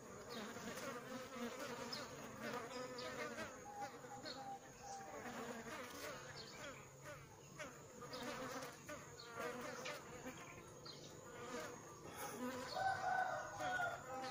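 Bees buzzing at the entrance of a wooden hive, with individual bees flying in and out close by so the buzz keeps rising and falling in pitch. One bee passes loudest near the end.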